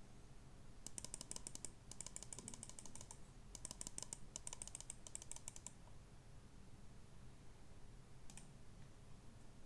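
Typing on a custom mechanical keyboard: fast runs of key clicks in several bursts over the first six seconds, a pause, then one short burst near the end.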